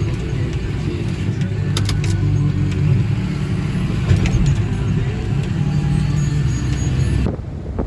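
A vehicle engine running steadily, with a few sharp clicks; it cuts off suddenly near the end.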